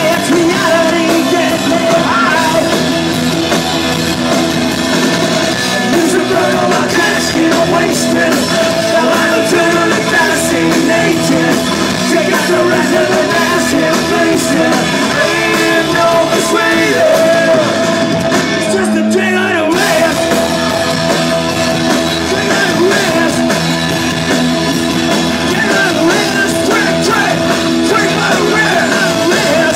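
Live rock band playing loudly with a singer's shouted vocals over guitars and drums. About two-thirds of the way through, the band drops out for under a second while one low note holds, then comes straight back in.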